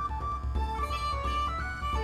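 Background music: a stepping melody over a pulsing bass line.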